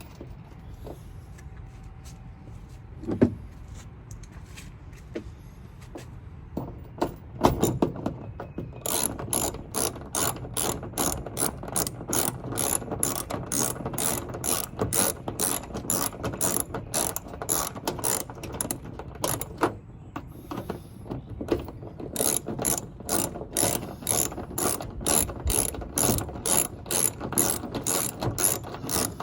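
Hand socket ratchet clicking as it turns the bolts of a Jeep hood latch, about three clicks a second, with a short pause partway through. A couple of knocks come before the clicking starts.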